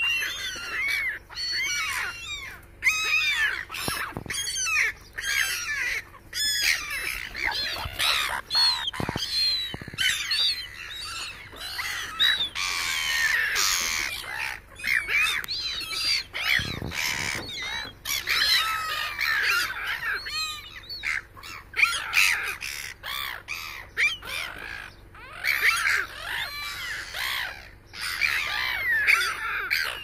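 A flock of gulls calling over and over, many short arching calls overlapping without a break, scattered with sharp knocks.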